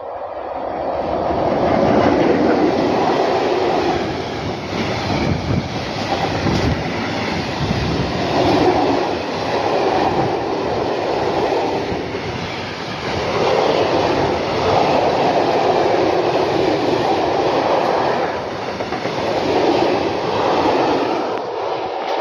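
Freight train of hopper wagons passing close by behind an electric locomotive, wheels rolling and clattering over the rails. The noise is loud and steady, swelling and easing in waves every few seconds as the wagons go past.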